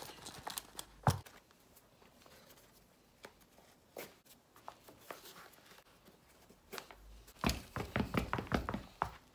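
Faint rustle and clicks of boot laces being tightened on new hiking boots, with a sharp click about a second in and a single knock around the middle. Near the end comes a quick run of knocks as the boots, Mountain Warehouse Rapid waterproof boots with lugged rubber soles, are stepped and tapped on the floor.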